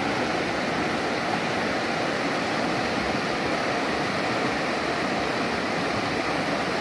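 Logan River, a mountain river, rushing steadily.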